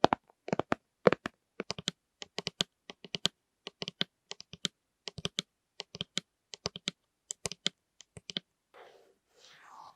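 Quick tapping and clicking on plastic lids, in uneven clusters of sharp taps, stopping a little past eight seconds in; softer rustling follows.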